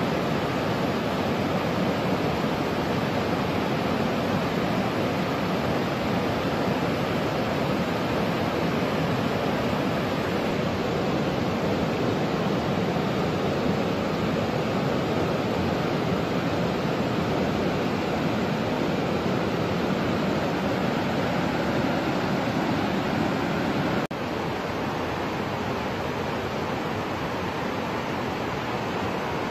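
Steady rush of a river's white water, an even unbroken noise that drops slightly in level about 24 seconds in.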